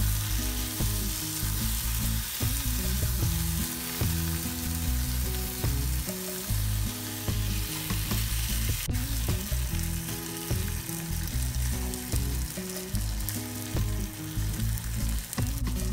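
Canned salmon pieces and onions frying in oil and chilli masala in a non-stick pan, sizzling steadily while a silicone spoon stirs and turns them. Low steady tones that shift in pitch every second or so sit underneath.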